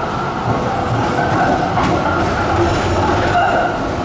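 Melbourne electric tram running past on street rails, a steady rumble of steel wheels on the track.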